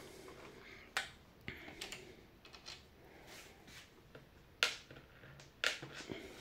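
Several scattered sharp clicks and taps of hard plastic as the coffee machine's plastic base housing is handled. The loudest comes a little past halfway.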